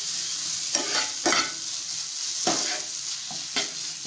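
A spatula stirring and scraping crumbled bread upma around a non-stick pan over a steady frying sizzle, with several separate scraping strokes.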